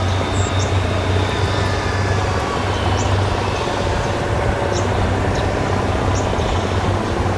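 Several Kubota DC70 rice combine harvesters running as they cut, a steady low drone with no change in pace.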